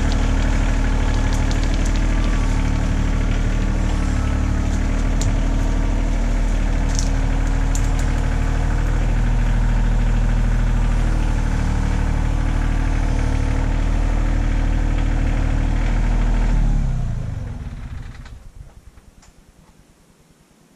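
Kioti CK2610 compact tractor's three-cylinder diesel engine running steadily, then slowing and dying away about seventeen seconds in.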